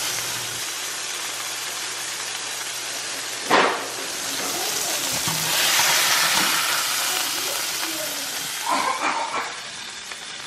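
Flour-dredged chicken breasts sizzling steadily in hot olive oil in a cast iron skillet, with a single sharp knock about three and a half seconds in.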